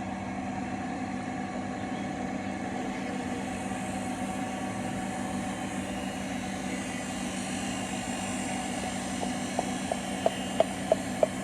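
A machine running with a steady, constant-pitch hum. About nine seconds in, a run of sharp taps joins it, roughly three a second.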